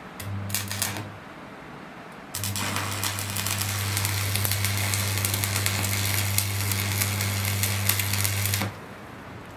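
Stick (arc) welding on steel: a short strike of the arc about a third of a second in, then a steady crackling, sizzling arc for about six seconds with a low hum under it, cutting off near the end.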